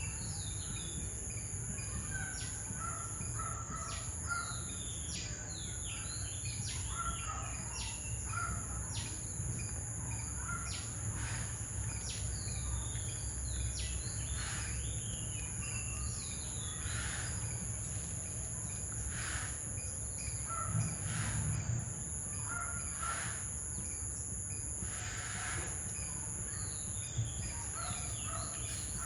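Outdoor tropical ambience: many short bird chirps and calls, one after another, over a steady high-pitched insect drone and a low rumble.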